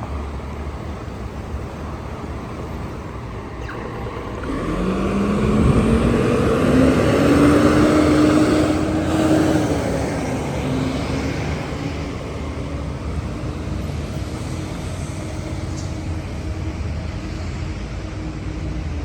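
Road traffic rumbling steadily. About four seconds in, a motor vehicle accelerates past: its engine note rises in pitch and grows loud, then fades away.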